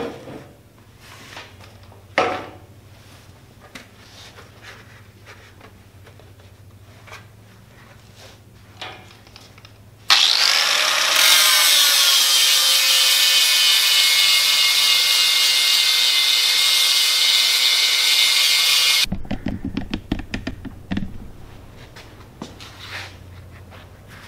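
Angle grinder spinning up about ten seconds in, its whine rising, then grinding steel with a loud steady high hiss for about nine seconds before stopping abruptly. Light knocks of metal being handled on the steel bench come before and after.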